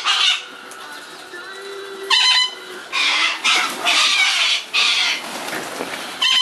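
A flock of wild corellas screeching: a series of harsh screeches, one near the start, another about two seconds in, then several overlapping calls from about three seconds in.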